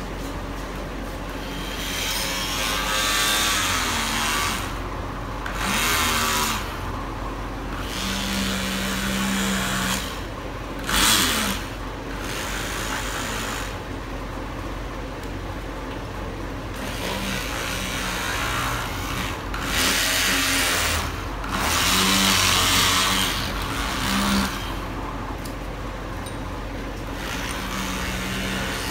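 Oscillating multi-tool fitted with a rigid scraper blade, running with a steady buzz while the blade scrapes peeling enamel paint off the wood. The rasping scrape comes and goes in repeated spells of one to three seconds as the blade bites into the paint and eases off.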